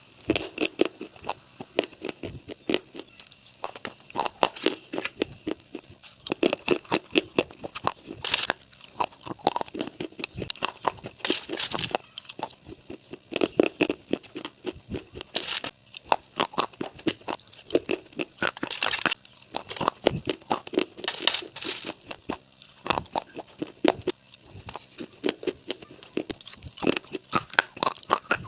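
Close-up crunching and chewing of something hard and brittle: dense clusters of crisp cracks come every second or two, with short pauses between them.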